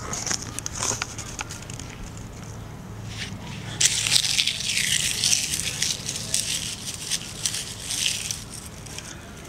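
Dry leaves and grit crunching and crackling underfoot in irregular bursts, busiest from about four seconds in until near the end, over a faint low steady hum.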